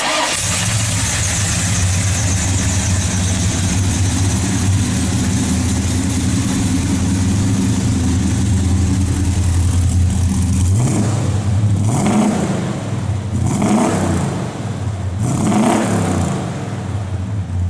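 1970 Oldsmobile Cutlass W-31's 350 V8 idling steadily, then revved briefly several times in the second half.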